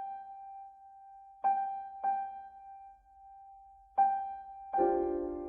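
Keyboard music: one high note rings out and is struck again three times, each strike fading away, then a fuller chord comes in near the end.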